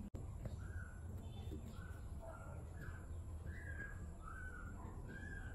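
A bird calling over and over in short, similar calls, more than one a second, over a steady low hum.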